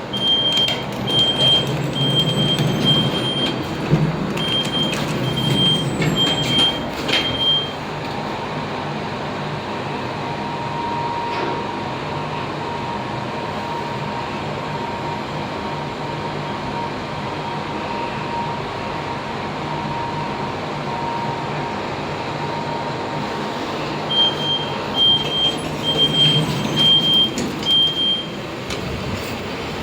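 Passenger lift running: a high electronic beeping in quick pairs for the first several seconds, then a steady hum with a faint thin whine while the car travels, and the same beeping again near the end.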